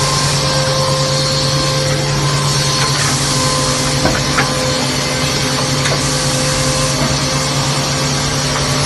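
Double-end wood cutting and milling machine running steadily: a constant motor hum with a high hiss over it, and two brief sharp clicks about four seconds in.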